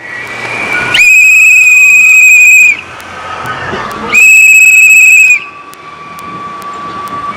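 A whistle blown loudly twice: two long, high blasts with a slight fast warble, the first a little under two seconds, the second about a second.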